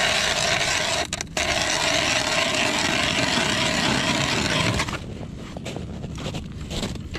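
Loud, steady scraping and grinding that stops abruptly about five seconds in, followed by quieter irregular crunches like steps in snow.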